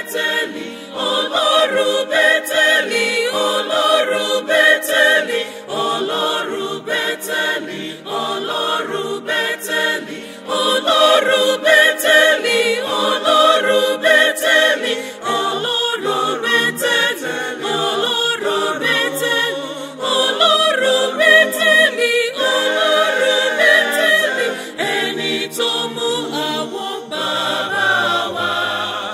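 Mixed choir of men's and women's voices singing a Yoruba gospel choral piece in parts, in continuous phrases.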